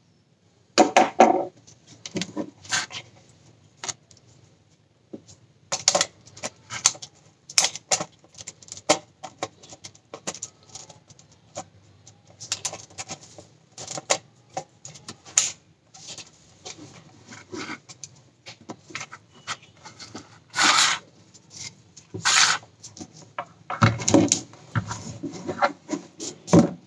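Handling noise of a Sony Alpha 58 camera body being picked up and turned over on a wooden desk: irregular clicks, light knocks and rubbing of the body and its fabric strap, starting about a second in, with two longer scrapes past the middle.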